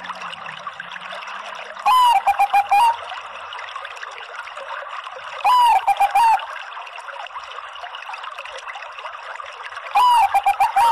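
Zebra dove (Bangkok perkutut) cooing: three calls about four seconds apart, each a short swooping coo followed by a quick run of clipped notes. A steady trickling noise runs underneath.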